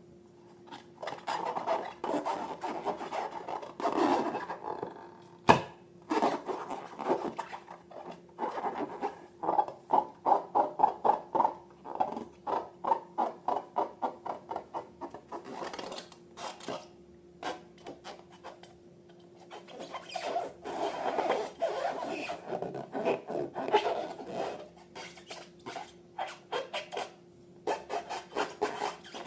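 Slime being squished and stirred, with runs of sticky clicking and crackling, fast and even for a few seconds in the middle, and a single sharp click about five and a half seconds in.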